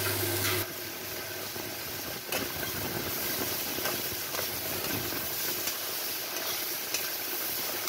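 Vegetables and dried kachki fish sizzling in mustard oil in a frying pan, a steady hiss, with a spatula stirring and scraping through them.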